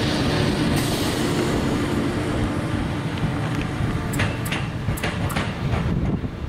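A locomotive running on the line, unseen: a steady rumble, with wheel clicks over rail joints starting about four seconds in, roughly three a second.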